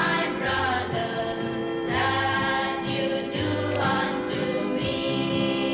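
A choir singing a hymn with instrumental accompaniment, in long held notes over a steady bass line.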